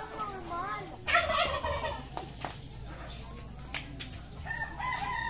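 Brahma chickens calling, with short wavering calls and a loud squawk about a second in. Near the end a rooster begins a long, held crow.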